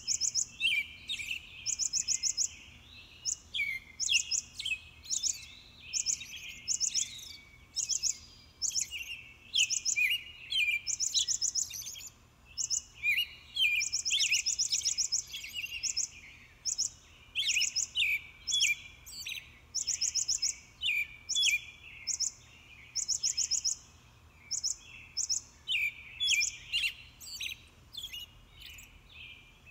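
A chorus of high chirping animal calls: short pulsed trills repeating about once a second, interleaved with quicker sweeping chirps, over a faint low hum.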